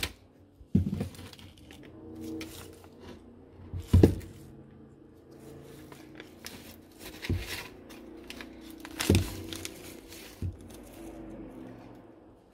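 Handling noise from work on the ATV parts: a few dull knocks, the loudest about four seconds in and again near nine seconds, with light rustling and scraping between.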